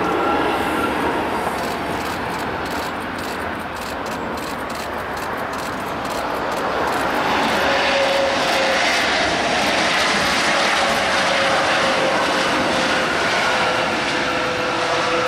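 Airbus A330-200's twin jet engines during the landing and rollout: a steady roar that grows louder about halfway through, with a faint steady whine that drifts slightly lower.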